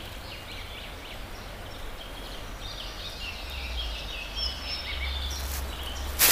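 Woodland songbirds chirping and trilling, many short calls overlapping, over a low steady rumble. Near the end, rustling steps in dry leaf litter begin.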